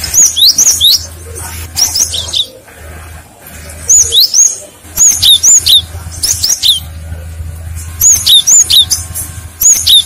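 Cinereous tit (gelatik batu) singing: sharp, high whistled chirps in quick clusters of two to four notes, repeated with short pauses, over a low hum that comes and goes.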